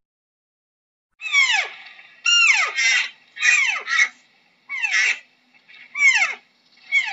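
Spotted deer calling: a run of about eight short, high squealing calls, each sliding sharply down in pitch, starting about a second in and coming every half-second to a second.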